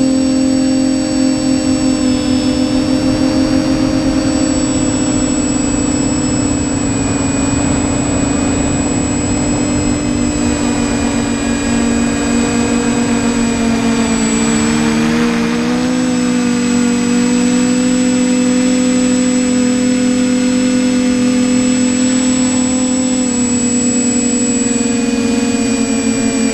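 TBS Discovery Pro quadcopter's brushless motors and propellers whining in flight, recorded on board, as several steady tones with a thin high whistle above them. About halfway through, the motor tones shift apart in pitch and then settle again.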